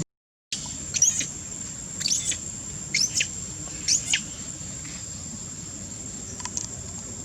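Short, high-pitched squeaky animal calls, each a quick rise and fall, about once a second four times, then a fainter one near the end, over a steady thin high drone like insects. The sound begins after a half-second gap.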